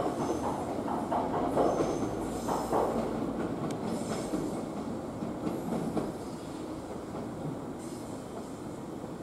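JR West 115 series electric train rolling slowly over the station points, its wheels clattering over rail joints and crossings with a few brief flange squeals in the first few seconds. The sound fades steadily.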